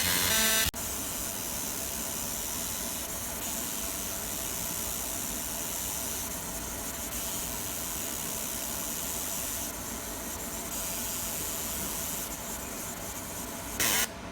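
50 W fiber laser marking machine deep-engraving metal: a steady hiss with a faint hum whose high end swells and fades every few seconds as the passes go on, with a short louder burst near the end.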